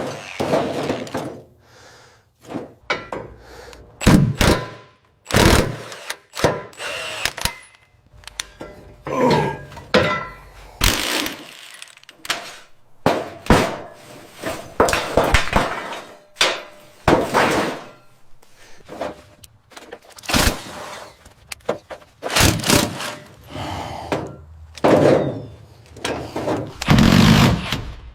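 Irregular series of knocks, clunks and short scrapes of tools and metal parts being worked on a car, some impacts ringing briefly.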